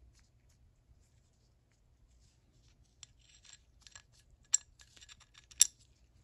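Small steel ratchet pawls being fitted onto their posts in a ratchet's mechanism housing: light metal clicks and scrapes, starting about halfway through, with two sharper clicks near the end.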